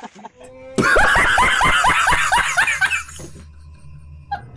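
Loud, rapid laughter sound effect over music, with quick repeated bursts of laughter that stop about three seconds in and leave a low music drone.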